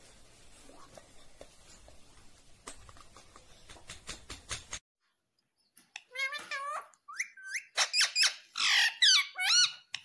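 Indian ringneck parrot giving a quick run of loud, high squeaky calls that slide up and down in pitch, starting a little past the middle after a short gap of silence. Before that there are only faint clicks, such as its beak working on a plastic pen.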